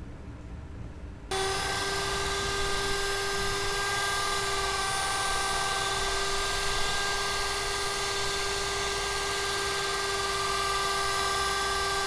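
Hand-held immersion blender switched on about a second in, its motor running with a steady whine as it mixes a thick white conditioner cream in a plastic bucket.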